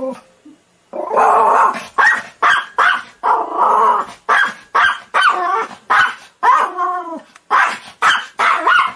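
German Spitz dog barking in a rapid, unbroken string of short barks, about two a second, starting about a second in.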